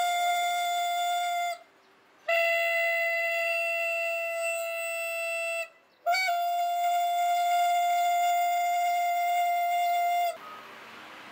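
Tofu seller's small hand horn (rappa) blown in long, steady, single-pitched blasts: one ends about a second and a half in, a second runs from about two to nearly six seconds, and a third, with a slight upward scoop at its start, runs to about ten seconds in. It is the traditional street call announcing fresh tofu for sale.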